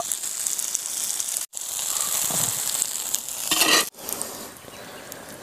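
Rohu fish pieces frying in hot oil in a pan, sizzling steadily. The sizzle drops out abruptly twice and swells briefly just before the second break.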